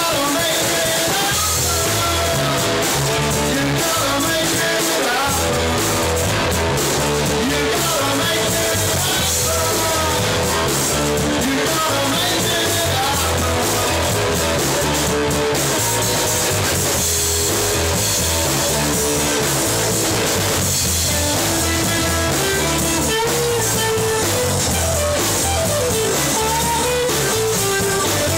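Loud rock music with guitar and a drum kit playing steadily.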